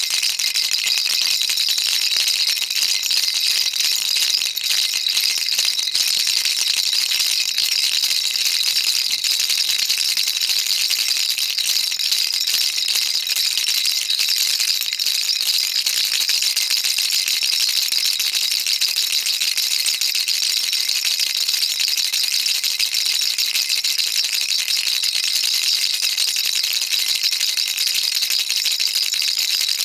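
Baby rattle shaken continuously: a dense, steady, high rattling of small beads inside it, without pauses.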